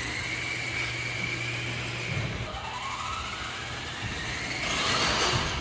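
A small RC monster truck's motor whining as it is driven. The pitch rises and falls, then climbs steeply and gets louder near the end as the truck speeds up.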